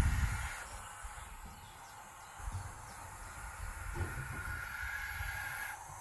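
Barn owl owlets hissing from inside a wooden nest box: the steady, breathy call known as snoring. A few low thumps come about two and a half and four seconds in.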